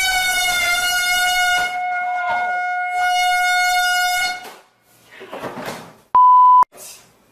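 An air horn gives one long blast lasting about four and a half seconds, its pitch dipping slightly at the start. It is followed by a short noisy burst and, near the end, a brief steady censor beep.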